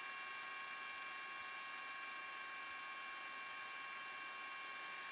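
Steady whine of a news helicopter's turbine engine heard from on board: several high, unchanging tones over an even noise.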